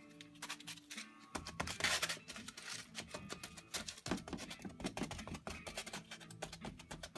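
Background music with many sharp clicks, and aluminium foil crinkling and tearing about two seconds in, loudest of all for about a second.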